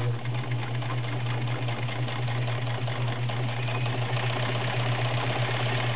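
Vintage Kenmore model 1318 sewing machine running steadily, sewing a straight stitch through fabric: a steady motor hum under a rapid, even needle clatter.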